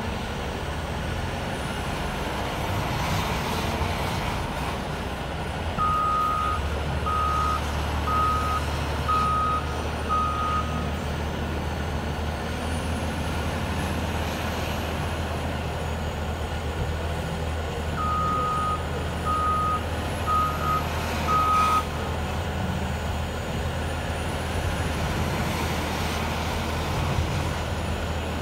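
CAT 966M wheel loader's diesel engine running under load. Its backup alarm gives two runs of about five beeps at one steady pitch, about six and about eighteen seconds in, as the loader reverses between the snow pile and the truck.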